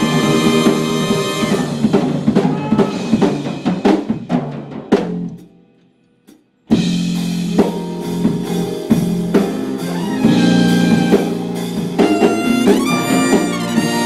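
A small ensemble rehearsing: trumpet playing over violins, electric guitar and drums. The music dies away to a brief silence about five seconds in, then comes back abruptly.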